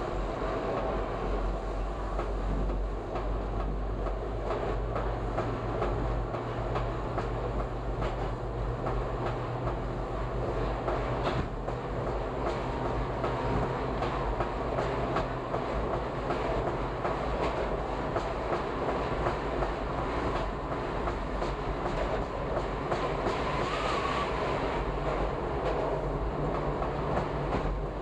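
Subway train running through a tunnel, heard from on board: a steady rumble with irregular clicks from the wheels on the rails.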